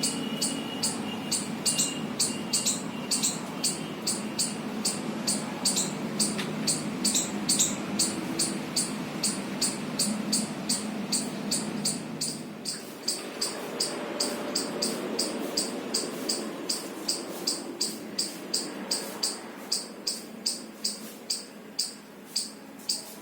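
Insect chirping in a steady rhythm, about two to three short high chirps a second, over a low steady background hum.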